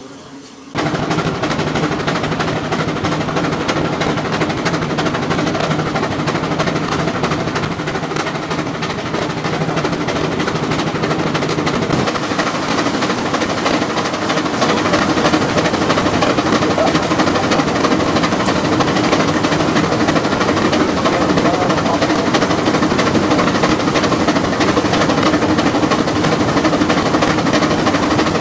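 Keck-Gonnerman steam traction engine running belted to a Baker fan, working under the fan's load: a fast, dense rattle of exhaust beats and belt and fan noise. It starts suddenly about a second in and gets louder about halfway through.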